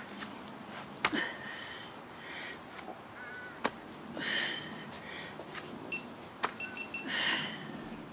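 A person breathing hard during a core exercise, with several short hissing exhales (the strongest about four and seven seconds in). Scattered light clicks and a few faint high chirps are also heard.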